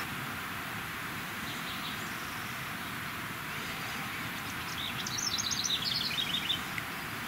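A steady outdoor hiss, and about five seconds in a small songbird sings a quick run of high chirps that step down in pitch.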